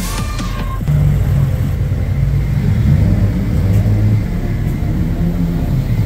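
Electronic music cuts off just under a second in and gives way to a car engine running: a loud, low, steady exhaust note that wavers slightly in pitch.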